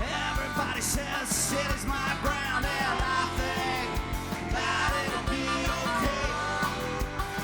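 Rock band playing live, with a steady beat.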